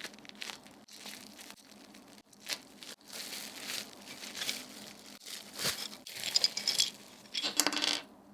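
Packaging crinkling and rustling as the keyboard is unwrapped, in a run of irregular bursts that are loudest near the end.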